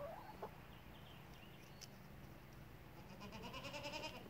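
Goat bleating: a short call at the start and a longer, wavering bleat near the end.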